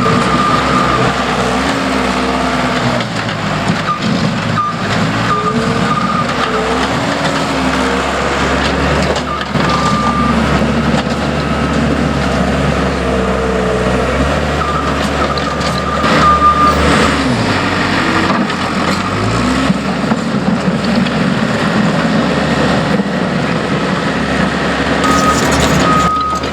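Heavy construction machines running, their engine pitch rising and falling as they work. A reversing alarm beeps on and off through it.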